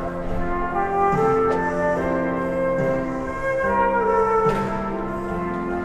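Transverse flute played live: a slow melody of held notes that step from one pitch to the next.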